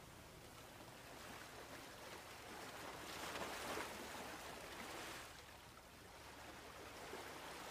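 Faint, even rush of wind and sea water around a small boat, swelling briefly about three seconds in.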